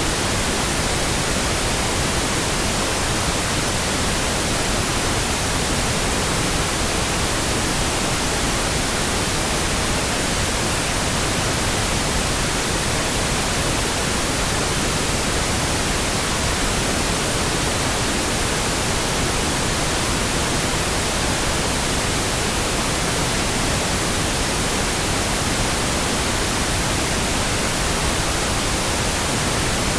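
Steady pink noise, an even and unchanging hiss spread from deep to high pitches.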